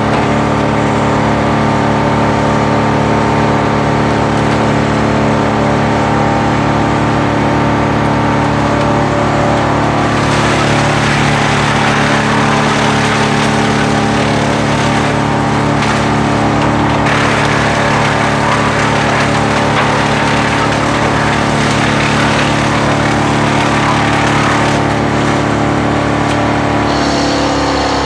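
A Fendt 936 tractor and the trailed wood chipper it pulls running steadily at working speed. From about ten seconds in, a louder rushing, crackling noise of wood being chipped rises over the engine for most of the next fifteen seconds. Near the end the engine pitch shifts.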